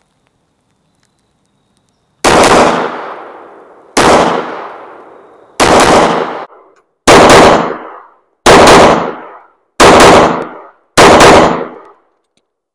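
IWI Masada S 9mm pistol firing 115-grain full metal jacket rounds: seven loud groups of shots starting about two seconds in, spaced one and a half to two seconds apart. Most groups, and all of the later ones, are quick double taps, each group ringing out briefly before the next.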